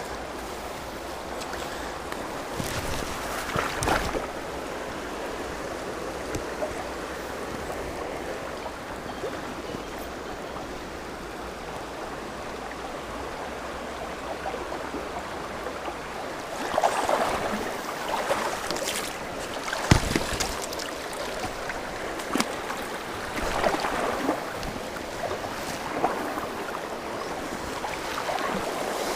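Mountain stream flowing steadily, with several louder splashing and knocking bursts now and then, the sharpest a single knock about twenty seconds in.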